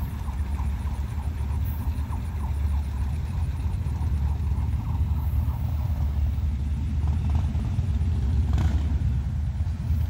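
Low, steady rumble of a CSX mixed freight train moving away down the line, with faint, evenly spaced high ticks over it.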